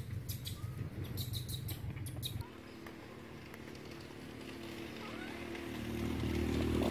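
Outdoor ambience: a low rumble with a quick run of short, high chirps in the first couple of seconds. After an abrupt cut about two and a half seconds in, it turns quieter, with a low hum that slowly grows louder.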